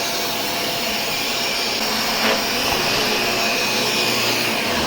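Shark Rotator upright vacuum cleaner running steadily on carpet, its motor and brush roll working normally now that the brush roll has been cleared of tightly wound threads.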